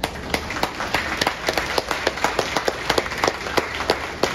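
Audience applauding: many people clapping, with individual hand claps distinct rather than blended into a haze.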